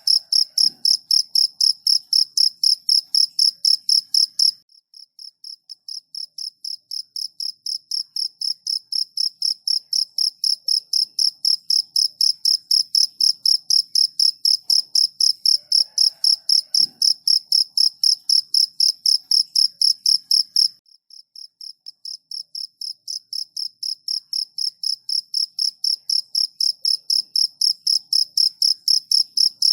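Cricket chirping in a fast, even rhythm of about four or five chirps a second at one high pitch. Twice the chirping drops away abruptly and swells back up over several seconds.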